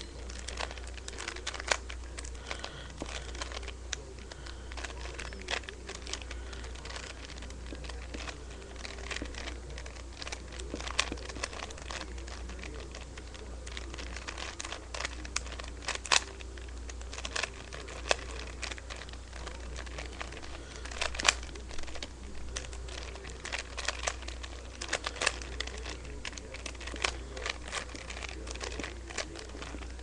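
Rubik's Cube layers being turned quickly by hand: a run of irregular plastic clicks and clacks, a few sharper than the rest, over a steady low hum.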